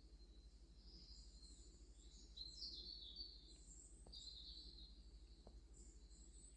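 Faint, high chirps and short twittering glides of small birds, repeating on and off, over a low steady hum.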